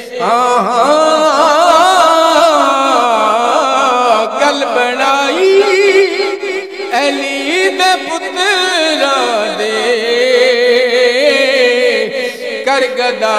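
A man singing a Punjabi qaseeda into a handheld microphone, holding long notes that waver and bend in melismatic runs.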